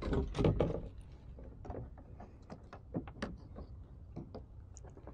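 Handling noises aboard a kayak as a small snook and gear are handled: a cluster of knocks and clatter in the first second, then scattered lighter clicks and taps.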